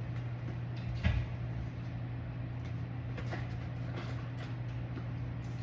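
Small knocks and taps of hands handling craft materials on a table, with one louder knock about a second in, over a steady low hum.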